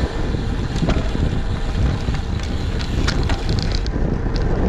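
Wind buffeting the microphone in a steady low rumble, with a few faint clicks and rattles over it.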